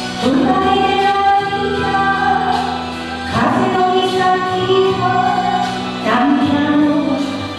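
A woman singing into a microphone over backing music, holding long notes, with a new phrase starting about every three seconds.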